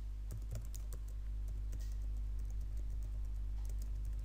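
Typing on a computer keyboard: a quick, irregular run of keystrokes, over a steady low hum.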